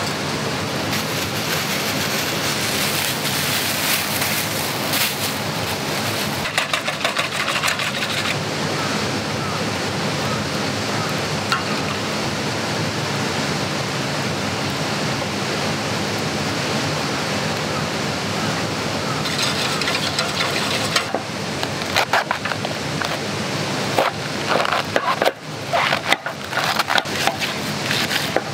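Steady hiss of a wood fire in a fire pit under cooking sounds: batter being stirred with a wire whisk in a stainless steel bowl, then, over the last several seconds, a knife chopping cabbage on a wooden cutting board in a run of uneven knocks.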